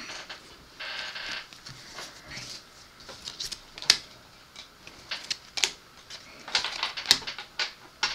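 Playing cards being handled and flipped through by hand: scattered light clicks and snaps of card stock, with a short rustle about a second in and two sharper snaps partway through.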